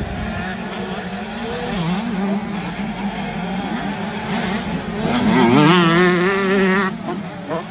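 Several 125cc two-stroke motocross bikes racing, their engines revving and changing pitch as riders work the throttle. One bike passes close about five seconds in and is the loudest, its note warbling rapidly, then it drops away sharply near seven seconds.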